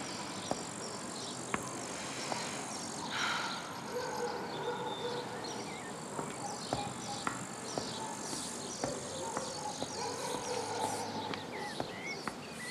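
Insects chirping in a steady high drone, with heeled shoes tapping on pavement about once a second and soft held music tones underneath.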